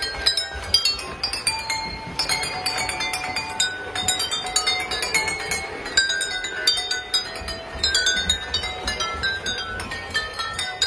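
Water-tuned drinking glasses struck one after another by a small mallet arm on a passing model train, each hit ringing out a short note at a different pitch so that a melody is played note by note.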